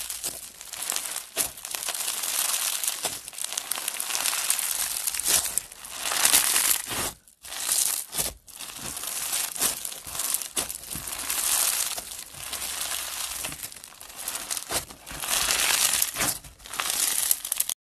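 Clear slime packed with iridescent glitter flakes being squeezed, folded and stretched by hand, giving a dense run of small crackles in waves. It breaks off briefly twice around the middle and stops just before the end.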